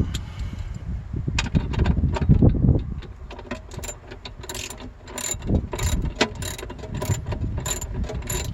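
Ratchet clicking in quick runs as a battery hold-down bolt is wound in by hand, with low knocks from handling the tool and bracket at first.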